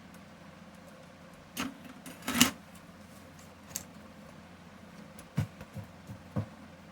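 Irregular clicks and knocks of a computer keyboard being handled and its keys pressed during a repair check. The loudest knocks come about two and a half seconds in, and a few softer taps follow near the end.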